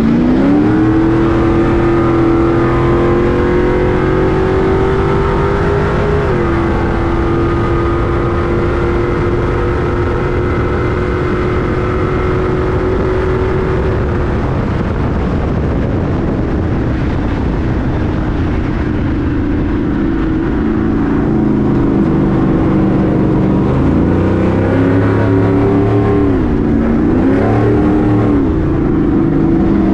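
Stadium Super Truck race engine running hard at high revs, holding a steady pitch with a small drop about six seconds in. Later the revs rise and fall twice in quick succession.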